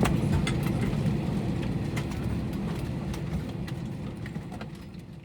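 Airliner cabin noise in an Airbus A321 just after landing: a steady low rumble from the CFM56 engines and air system, with scattered light clicks and rattles, slowly dying away toward the end.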